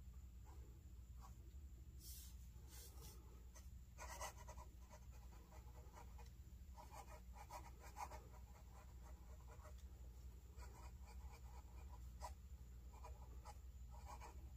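Fountain pen with a #6 Jowo medium steel nib writing on thin onion skin paper: faint scratching of the nib in short bursts of strokes, with brief pauses between words.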